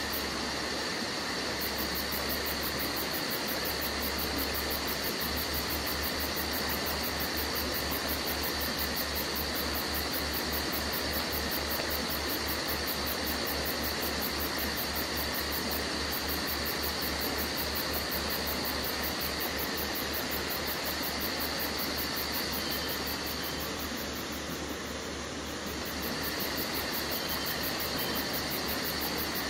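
Steady hiss of background noise with faint constant high tones and a low hum that pulses regularly.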